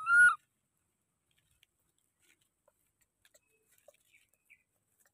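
Infant macaque giving one short, high-pitched call right at the start, rising a little and then levelling off. After it come only faint scattered ticks of movement.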